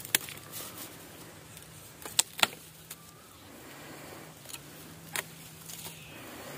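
Dry bamboo stems and twigs snapping and cracking in a few sharp cracks, two of them close together about two seconds in, over a faint low hum.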